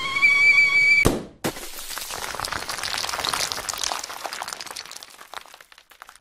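Cartoon sound effect of an egg shattering: a held whistle-like tone, then a sharp crack about a second in, then a glassy crackling of scattering pieces that fades away over several seconds.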